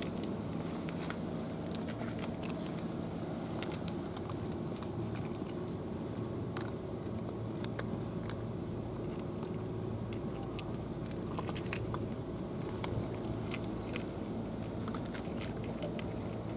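Several cats crunching dry kibble from plastic trays: irregular sharp clicks and crackles throughout, over a steady low background rumble.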